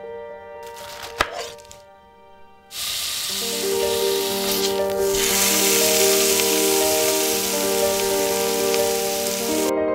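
Frying sizzle, as of food in a hot frying pan, starting sharply about three seconds in and cutting off suddenly near the end, over soft background music. A single sharp click a little over a second in is the loudest moment.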